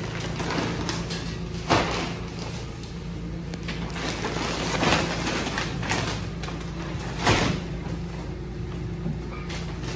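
Heavy plastic-wrapped sacks of dog food being lifted and dropped onto a pile, with three sharp thuds among the rustling of the plastic, the one near the end the loudest, over a steady low hum.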